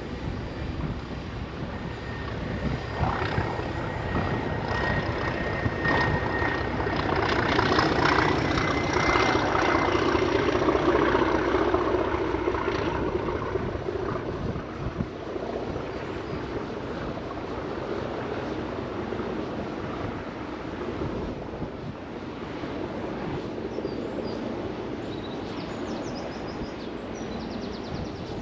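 Train passing by: it grows louder, is loudest about a third of the way through, then fades away. A steady high whine runs over the first ten seconds or so.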